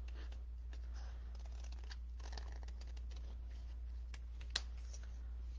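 Small scissors snipping through cardstock in short, faint cuts, with the paper rustling as it is turned, and one sharper click about four and a half seconds in.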